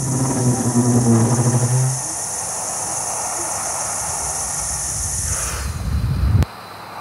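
A steady high insect-like chirring over a low humming drone, then a low rumble that swells and cuts off abruptly about six and a half seconds in.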